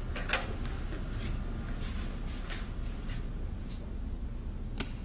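A laptop and phone being picked up off a kitchen counter, giving faint handling clicks and knocks over a low steady room hum, with one sharp click near the end.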